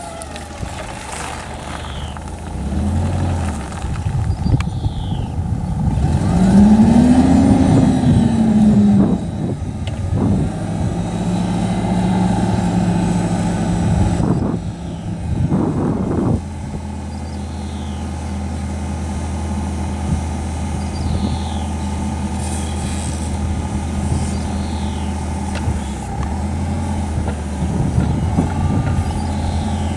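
LPG-powered Hyster H1.8FT forklift engine running. About six seconds in it revs up and back down, then holds a steady, raised speed while the triplex mast is lifted to full height.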